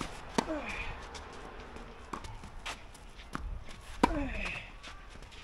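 Tennis rally: two loud racket strikes on the ball about three and a half seconds apart, each followed by a brief falling tone, with fainter ball bounces and far-court hits between them.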